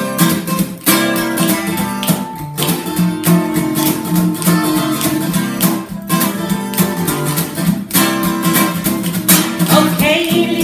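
Steel-string acoustic guitar strummed in a swing rhythm, with no singing.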